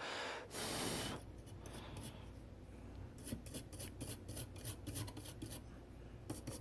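Blown air hissing as the freshly desoldered circuit board is cooled, cutting off about a second in. Then a run of light, irregular clicks and scrapes of small tools working on the board.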